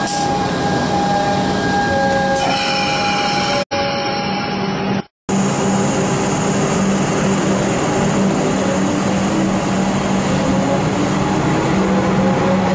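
Melbourne suburban electric train running past with a steady electric whine over wheel and rail noise. The sound cuts out briefly about four to five seconds in, then another electric train runs alongside the platform, its motor whine rising in pitch near the end.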